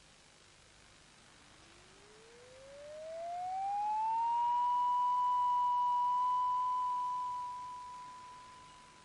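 An electronic tone gliding smoothly upward in pitch over about three seconds, then holding one steady high note for several seconds before fading away near the end, over a faint tape hiss.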